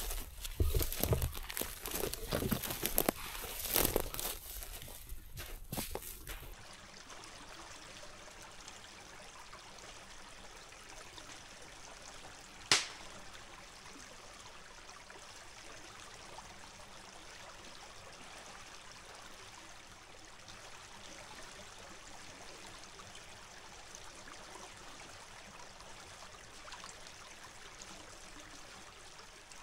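Footsteps in rubber boots crunching through dry leaves and lichen for about the first six seconds, then an abrupt cut to a small woodland creek running steadily. One sharp click about thirteen seconds in.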